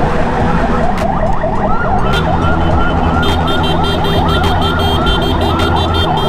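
Electronic siren sounding in a motorcycle motorcade: a fast chirping yelp that changes about two seconds in to slower rising-and-falling whoops, about three a second. Underneath, a motorcycle engine runs steadily with road and wind noise.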